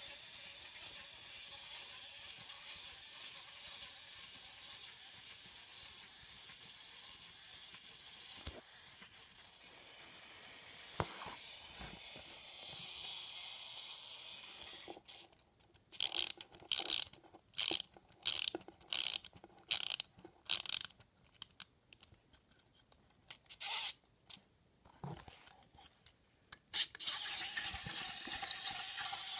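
Wind-up plastic walking toy's clockwork running with a steady high whir, which cuts out after about 15 seconds. Its key is then wound in a series of short ratcheting clicks, about ten in all, and the clockwork whirs again near the end as the toy walks.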